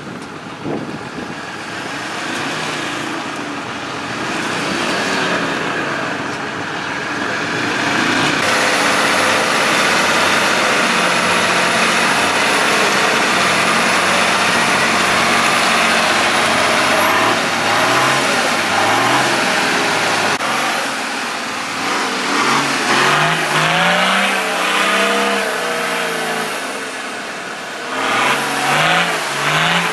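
Off-road 4x4 engines revving hard, the pitch rising and falling again and again, as the vehicles churn through thick clay mud with the wheels spinning for grip.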